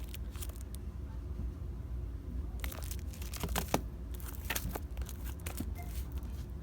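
Packaging crinkling and crackling as it is handled, in several short bursts about midway through, over a steady low hum.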